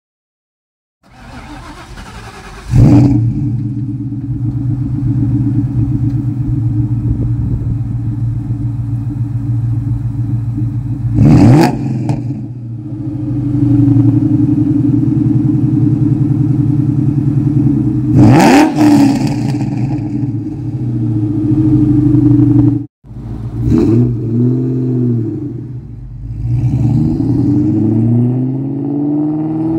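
Supercharged 4.6-litre V8 of a 2003 Mustang SVT Cobra, with long-tube headers, an X-pipe and a Bassani catback exhaust, catching loudly near the start and then idling. It is revved sharply twice and held steady at about 3000 rpm, then accelerates away from a standstill, its pitch rising, easing and rising again.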